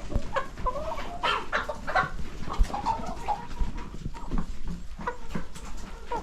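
A flock of chickens clucking and squawking, with many short calls overlapping, and a single knock about two and a half seconds in.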